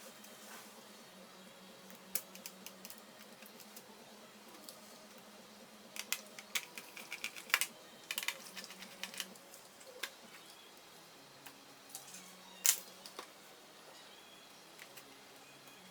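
Scattered sharp clicks and light taps of small plastic and metal laptop parts being handled during disassembly, busiest about midway, with one louder click near the end.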